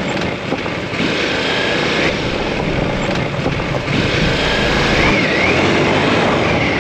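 Motorcycle engine running loud and steady while riding.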